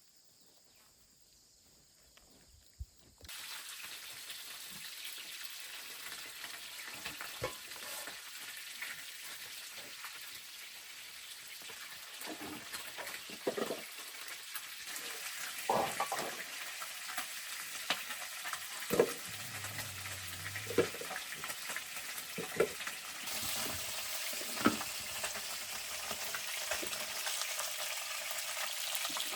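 Food sizzling in hot oil in a pan. The sizzle starts suddenly about three seconds in and grows louder later, with occasional knocks and scrapes of a utensil stirring.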